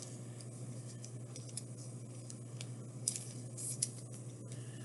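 Faint, scattered light ticks and rustles of trading cards and packaging being handled, over a steady low hum.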